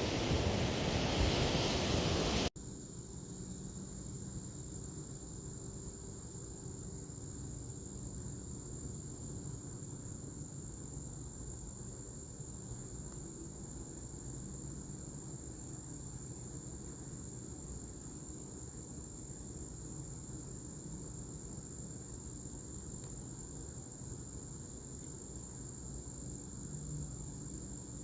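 A loud rush of wind or surf noise cuts off sharply about two and a half seconds in. It gives way to a steady, high-pitched insect drone, like crickets, over a low rumble of outdoor background noise.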